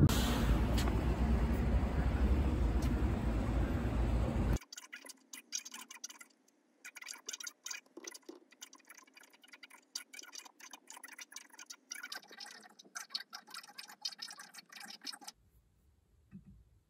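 Outdoor noise with wind rumbling on the microphone, which cuts off suddenly about four and a half seconds in. Then comes quiet, irregular clicking of laptop keys and trackpad, which stops shortly before the end.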